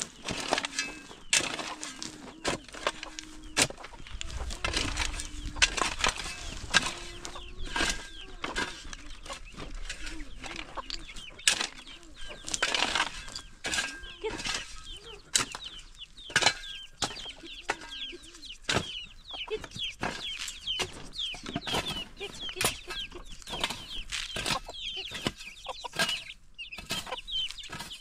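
Hens clucking in short held calls, with many high chirping calls in the second half, over frequent sharp knocks and scrapes.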